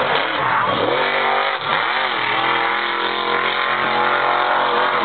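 Grave Digger monster truck's supercharged V8 revving up and down several times in quick succession, then held at high revs from about two seconds in.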